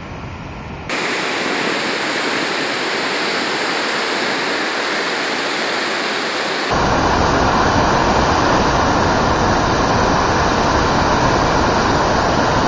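Loud, steady rush of churning white water on a river. It cuts in abruptly about a second in, then switches suddenly near seven seconds to a louder rush with a deeper rumble.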